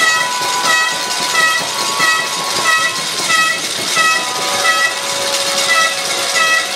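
Horn toots repeating in a steady rhythm, about three every two seconds, over a held lower tone.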